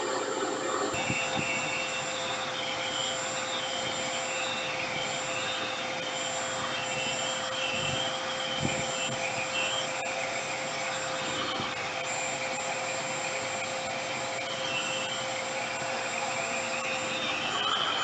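RevAir reverse-air hair dryer running steadily: a constant rush of air with a steady hum under it, its suction wand drawing a section of hair through to dry it.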